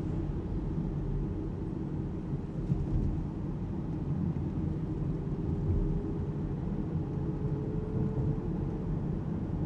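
Alpine A390 electric car driving in town: a steady low rumble of road and tyre noise, with a faint thin whine that rises slightly in pitch past the middle.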